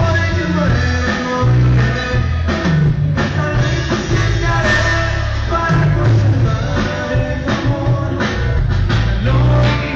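A live band playing: strummed acoustic guitar, electric guitar and a drum kit keeping a steady beat, with a strong bass line underneath. Heard from among the audience in the venue.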